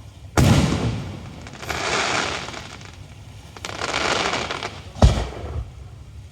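Aerial fireworks shells bursting: a sharp boom about half a second in and another near the end, with two stretches of crackling hiss between them.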